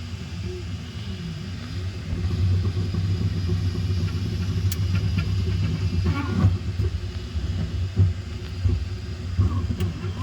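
Flsun V400 delta 3D printer running, its stepper motors humming and whining in shifting pitches as the print head moves, broken by a few sharp clicks a few seconds apart. The loud clicking is the fault the owner is complaining about.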